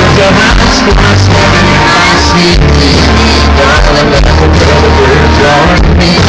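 Loud live country-rock band music with a strong bass line, with voices shouting and singing along.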